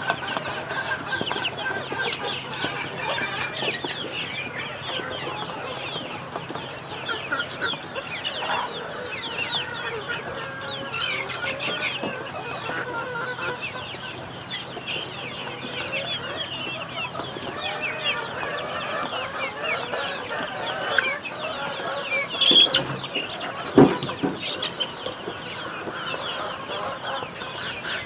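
A large flock of young chicks peeping continuously, many short high chirps overlapping. A sharp knock near the end is the loudest sound.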